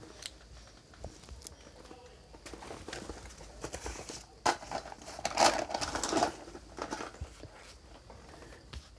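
Rustling, crinkling handling noise with scattered clicks. It builds a couple of seconds in, is loudest around the middle, and dies away near the end.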